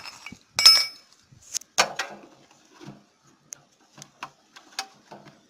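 Scattered clicks and clinks of small metal parts and tools being handled while the choke-control clip is fitted to a generator's gas carburetor. The loudest is a ringing metal clatter just under a second in, with a duller knock about a second later.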